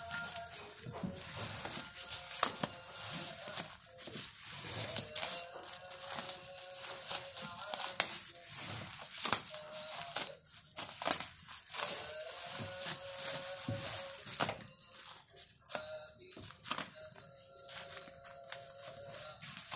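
Black plastic tyre wrapping crinkling and tearing while scissors snip through it, in many short crackles. Music plays in the background.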